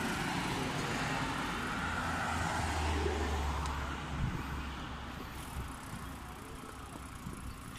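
Road traffic noise with a low vehicle rumble that is loudest in the first half and fades away after about four seconds.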